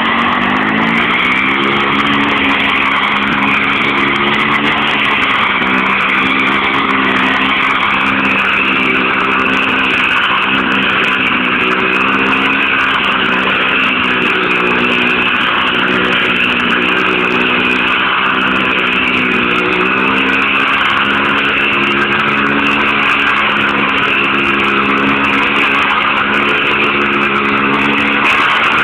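Chainsaw engine running continuously at high speed, a steady buzzing drone whose pitch shifts slightly now and then.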